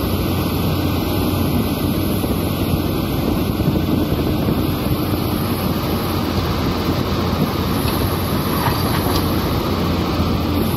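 Caterpillar hydraulic excavator's diesel engine running steadily under load, close by, while the machine swings and dumps a bucket of dirt into a dump truck.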